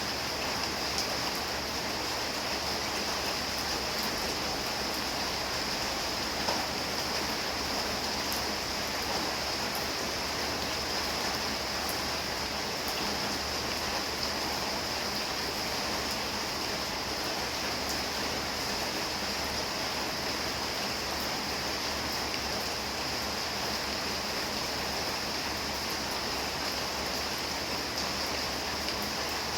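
Steady rain falling, an even, unbroken hiss with a few faint ticks of single drops.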